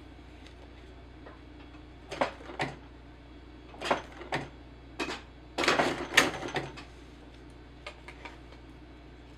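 Sewing machine stitching in short bursts of one or two stitches, with pauses between, as the seam is eased around a curve at the edge; a busier run of stitches comes about six seconds in.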